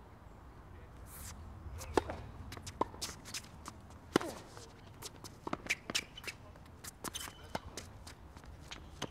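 Tennis rally on a hard court: a ball struck back and forth by rackets and bouncing, with sharp hits, the loudest about two and four seconds in, and shoes scuffing on the court between strokes.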